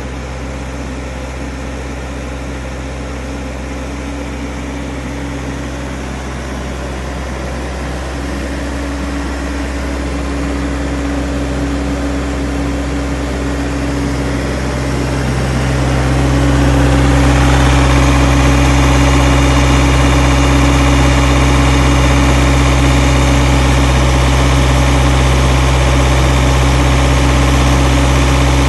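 Thermo King SL200e refrigeration unit on a reefer trailer, its diesel engine running steadily at idle. It grows louder over the first half and then holds steady.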